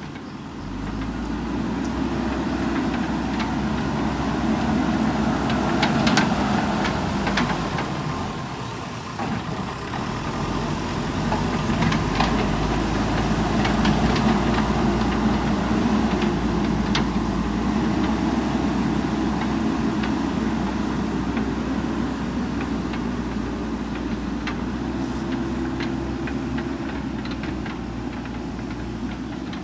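JCB 3DX backhoe loader's diesel engine running steadily, swelling louder a few times, with scattered sharp clicks and knocks over it.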